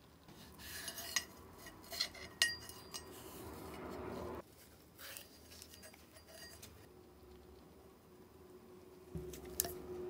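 Handling of a brass lighter body in gloved hands: three sharp metallic clinks in the first few seconds, then a rising scraping rustle that stops abruptly about four seconds in, and another clink near the end, as the old cotton wadding and wick are worked out of the tube.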